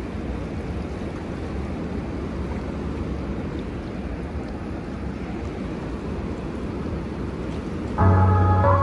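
Steady, even rush of fast, turbulent river current in a dam's tailwater. Background music comes in near the end.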